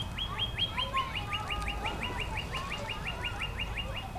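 A bird calling: a fast, even run of short, high notes that each slide downward, about six a second. Softer warbling notes sit lower down.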